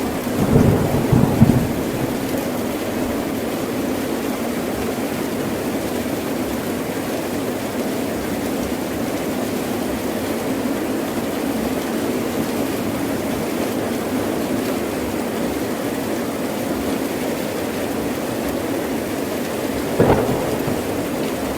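Heavy rain falling steadily, with rolls of thunder in the first two seconds and a sharp thunderclap near the end.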